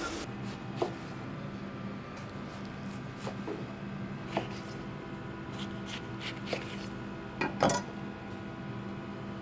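A knife and hands working a napa cabbage roll on a plastic cutting board: scattered light taps and knocks, the loudest a close pair near the end, over a steady low hum.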